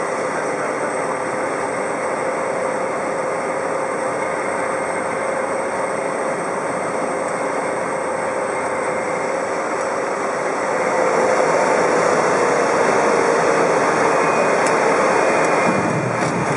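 Cockpit noise of a single-engine propeller plane landing on a dirt airstrip: a steady engine and propeller drone with a faint steady tone. It gets louder about two-thirds of the way through.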